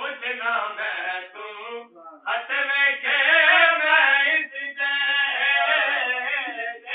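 A man's voice chanting an unaccompanied devotional recitation in melodic phrases, typical of a naat recited at a milad. It dips briefly about two seconds in, then goes on louder in long held notes.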